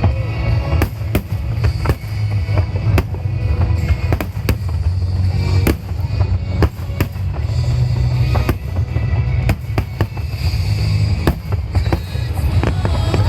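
Aerial fireworks shells bursting in quick succession: sharp bangs, one or two every second, over a steady deep rumble.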